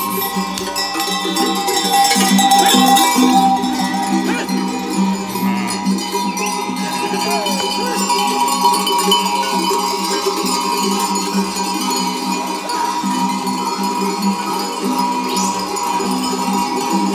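Many livestock bells on a walking flock of sheep and goats, clanking and ringing together without a break.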